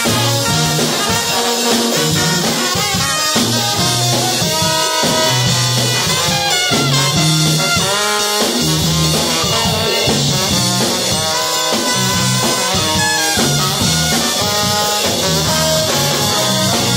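Live brass band playing: trumpets and trombones over a sousaphone bass line.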